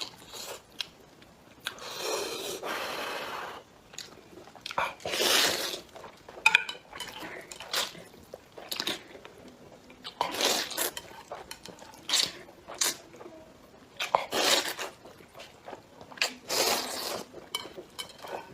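Someone eating: irregular bouts of crunchy chewing and biting with short pauses between them, and scattered sharp clicks.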